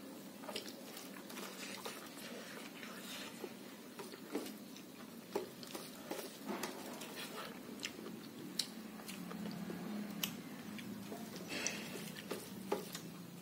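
A man chewing mouthfuls of rice and pork curry eaten by hand, with scattered wet smacks and small clicks of the mouth.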